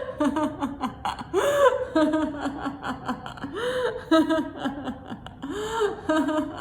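A woman doing deliberate laughter-yoga laughter: runs of quick rhythmic "ha ha ha" pulses, each broken by a higher gasping whoop, about every two seconds.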